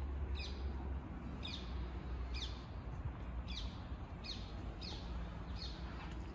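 A bird calling over and over: short, high notes that each slide downward, about one a second, over a low rumble.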